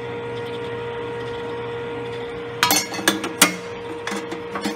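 Arc sub-1 kg gas coffee roaster running with a steady hum. From about halfway in, several sharp metallic clicks and knocks as its metal parts by the chaff collector are handled.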